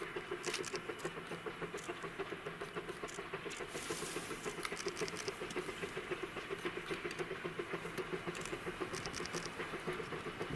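Two-foot gauge steam locomotive approaching slowly with its train, its exhaust beating in a fast, even pulse. Brief bursts of light clicking come about halfway through and again near the end.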